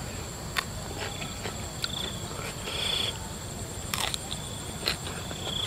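Field insects chirping: a steady high drone with short buzzy trills now and then. Over it come a few sharp crisp crunches as raw green vegetable stems are bitten, the loudest about four seconds in.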